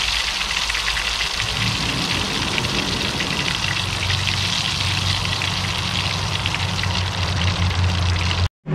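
Battered seafood frying in hot oil in a cast-iron skillet: a steady crackling sizzle that cuts off suddenly near the end.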